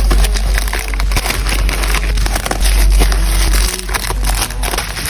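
Parcel packaging handled up close during an unboxing: a continuous run of irregular crinkling and crackling as the wrapping is pulled open.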